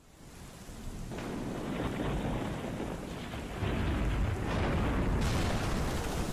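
Rain-and-thunder sound effect: a rush of rain swells up over the first second, a deep rumble of thunder comes in louder a little past halfway, and a brighter hiss joins about five seconds in.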